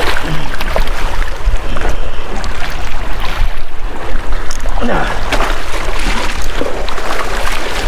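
Surf washing and splashing over jetty rocks, with wind buffeting the microphone in a steady low rumble.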